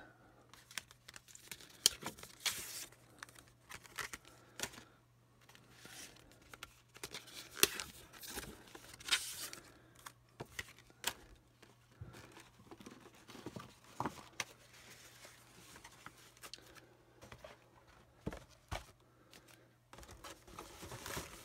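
McDonald's Pokémon card packs being handled and torn open by hand: quiet, irregular tearing and crinkling of the thin pack wrappers, with scattered sharp clicks. A faint steady low hum runs underneath.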